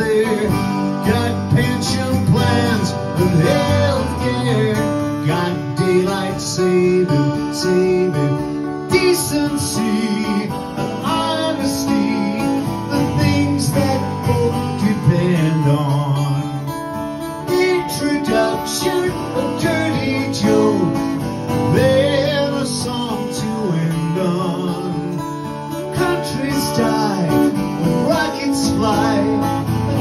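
Live music: a guitar strummed with a man singing along.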